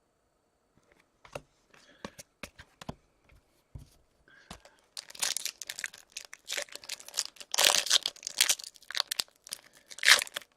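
A few light clicks and taps, then from about halfway in a foil hockey card pack wrapper is torn open and crinkled in quick, crackly bursts.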